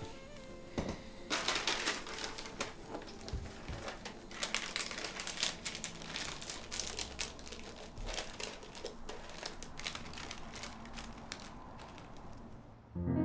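Crinkling and rustling as something is handled, with many small irregular clicks and taps.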